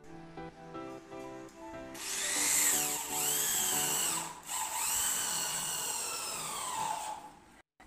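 Background music for about two seconds, then a corded electric drill runs in two long runs with a brief break between them. Its whine rises at each start, and near the end it winds down and stops.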